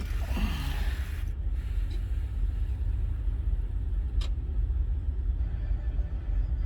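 International ProStar truck's diesel engine idling steadily just after start-up. A hiss runs through the first second, and there is one sharp click about four seconds in.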